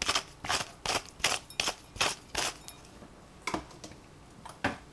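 A small spice shaker being shaken to sprinkle red spice flakes: a quick run of about seven short, sharp rattling shakes, then two more about a second apart.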